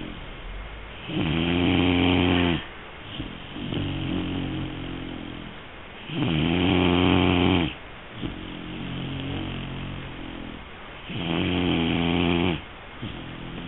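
Three-month-old Great Dane puppy snoring in its sleep: three loud rasping snores about five seconds apart, with softer snoring breaths between them.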